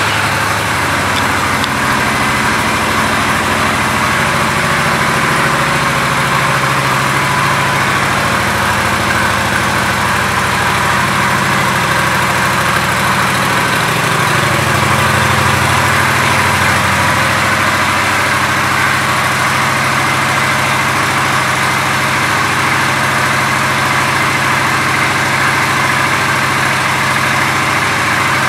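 Honda Shadow Phantom 750's V-twin engine idling steadily. Its low exhaust note grows fuller about halfway through.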